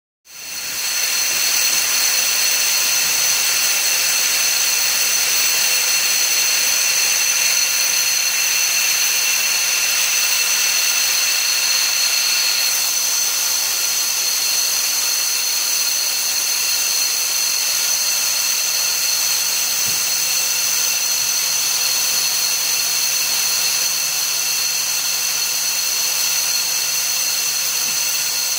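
Steady industrial machine noise from plastic pellet conveying and box-filling equipment: a continuous hiss with a high-pitched whine. A low hum joins about two-thirds of the way through.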